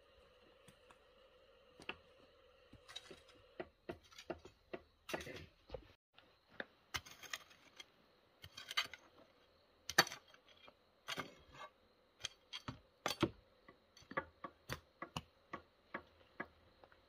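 Irregular series of light knocks and clicks, roughly one or two a second, over a faint steady hum.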